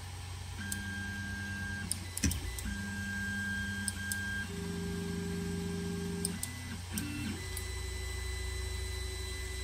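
Creality Ender 3 3D printer's stepper motors whining at a few different steady pitches in stop-start moves as the bed and print head travel at the start of a print, once the hot end has finished heating. A few light clicks and a steady low hum run underneath.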